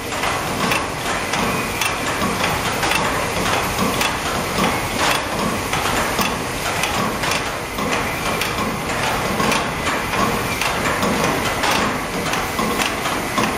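Industrial pancake production line running, its conveyors and cooking plate giving a steady mechanical clatter with frequent light clicks and knocks.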